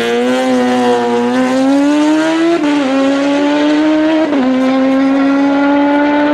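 Kawasaki ZX-14 drag bike's inline-four engine at full throttle down the drag strip. Its pitch climbs steadily in each gear and drops at two quick upshifts, about two and a half and four and a half seconds in.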